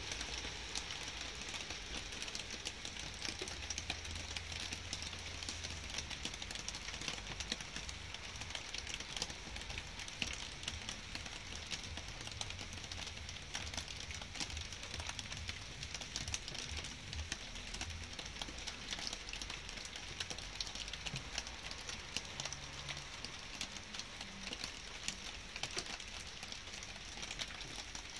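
Light rain falling steadily, with many individual drops ticking close by over a soft hiss, and a faint low rumble underneath.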